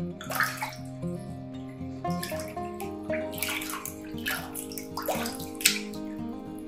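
Water splashing and sloshing in a plastic basin as a hand scoops and rubs water over a baby monkey during its bath, in several short splashes with a sharper one near the end. Background music with held notes plays throughout.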